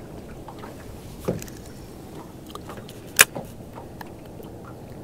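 Fishing gear handled in a boat: light ticks, a dull knock about a second in and a sharp click a little after three seconds, over a steady low rumble.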